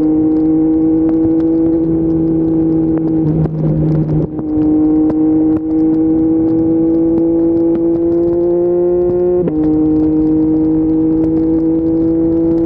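Yamaha MT-09's 890 cc inline three-cylinder engine through an Akrapovic full-system exhaust, pulling steadily under acceleration with the pitch slowly rising. It upshifts twice, about three and a half seconds in and again near ten seconds in, the note dropping each time before climbing again.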